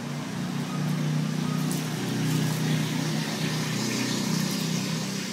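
An engine running steadily, a low hum that grows a little louder about a second in.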